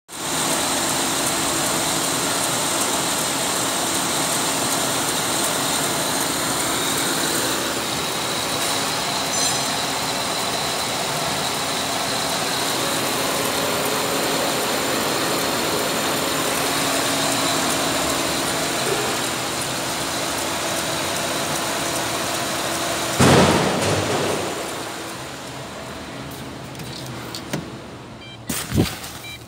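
Holden Statesman's 3.8-litre V6 engine idling steadily. Most of the way through comes a single loud thump, after which the engine is heard more faintly from inside the cabin, with a few clicks near the end.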